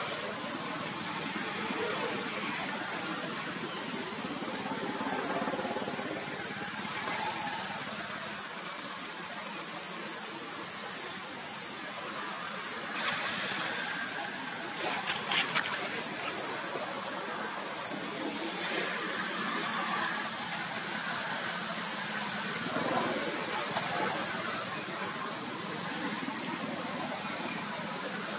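Outdoor ambience: a steady, high-pitched hiss that does not change, with a faint murmur lower down.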